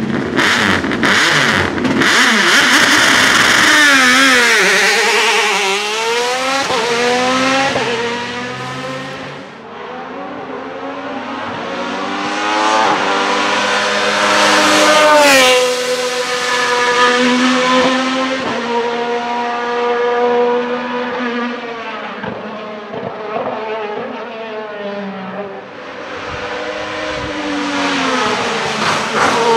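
Alfa Romeo 155 V6 TI race car's V6 engine revving hard under acceleration, its pitch climbing with each gear and dropping at each change, again and again. It is loudest about halfway through as the car passes close.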